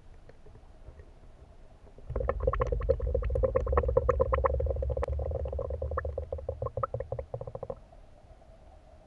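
Underwater bubbling of a scuba diver's exhaled breath leaving the regulator exhaust: a rapid burble of many small pops over a low rumble, starting about two seconds in and dying away near the end.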